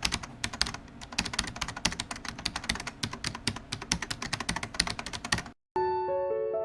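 Fast, irregular typing on a computer keyboard, many clicks a second, which stops about five and a half seconds in. After a short silence, soft piano music begins near the end.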